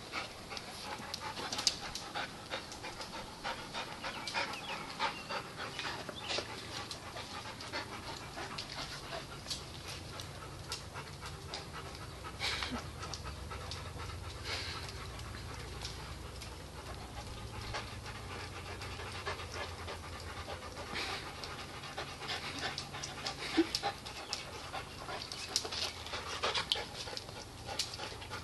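A dog panting heavily and steadily while two dogs tussle at close range, with scattered clicks and scuffs throughout and a few louder ones near the end.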